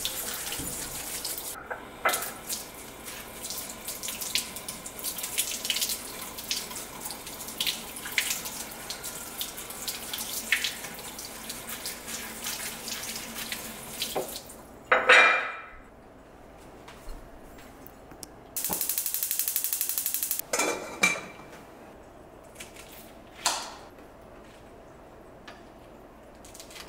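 Water running from a brass kitchen tap over Brussels sprouts in a small strainer as they are rinsed by hand, with light clinks, for about the first half. The water stops, followed by a sudden loud burst. After that it is quieter, with a steady buzz of about two seconds and a few single sharp knocks.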